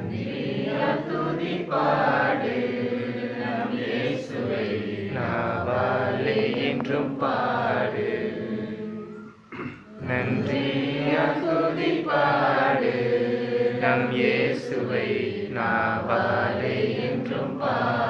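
A small group of men's and women's voices chanting together in unison, a devotional chant sung in two long stretches with a brief breath about halfway through.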